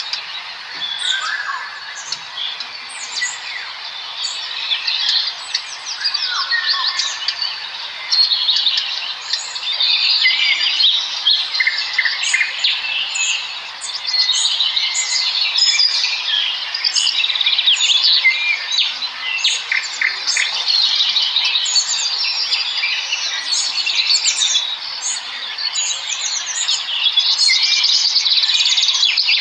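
Many small birds chirping and chittering at once, a dense overlapping chorus of short high calls and trills.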